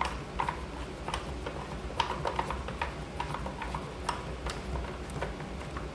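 Irregular light clicks and taps of the plastic tire compressor's case being handled and put back together, over a faint low background hum.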